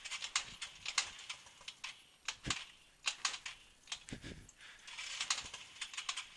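Irregular light clicks and knocks, made while working at a Yamaha Vino scooter whose engine is not yet running.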